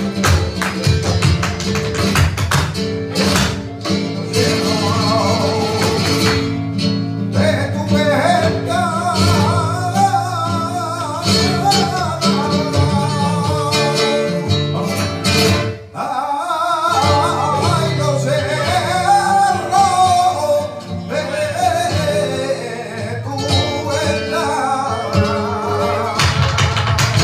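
Live flamenco music: acoustic guitars with a singer's wavering, ornamented cante. Sharp percussive strikes are heavy in the first several seconds, and the singing carries most of the rest.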